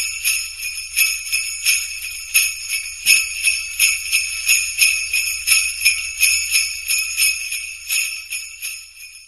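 Sleigh bells shaken in a steady rhythm, about three shakes a second, dying away near the end.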